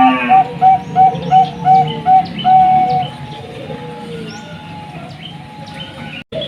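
Zebra dove (perkutut, Bangkok song type) cooing a run of short, evenly spaced notes, about three a second, that ends in a longer held note about three seconds in, followed by softer cooing. High chirps from small birds run underneath, and the sound cuts out briefly near the end.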